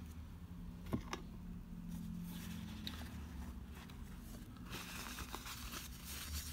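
Faint handling noise: two light taps about a second in, then soft rustling and crinkling of a paper tissue being picked up and handled.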